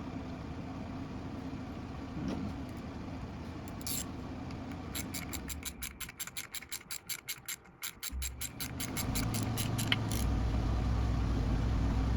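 Ratchet wrench clicking quickly and evenly, about eight clicks a second for a few seconds, while the new lock nuts on the diaphragm pump are run down. A low steady hum starts just after the clicking stops and gets louder toward the end.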